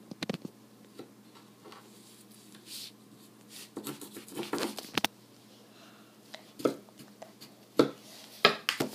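A metal spoon scraping and scooping kinetic sand on a cloth-covered table: irregular soft scrapes and taps, with a few sharper knocks in the second half.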